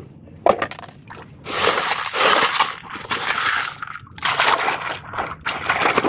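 Water sloshing and splashing as a hand scrubs a plastic toy truck in a tub of muddy water, with a few sharp knocks of plastic.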